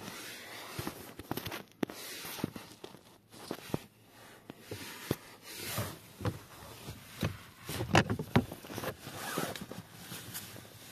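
Irregular clicks, light knocks and rustling of gloved hands handling plastic parts and trim around a car's blower motor housing under the dashboard. The sharpest knocks come about eight seconds in.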